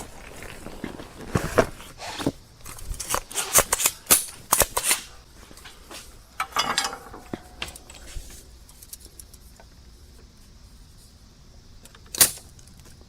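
Sharp clicks and light clatter of small tools and parts being handled on a workbench during a solder repair. They come thick for the first six or seven seconds, then it goes mostly quiet, with one more click near the end.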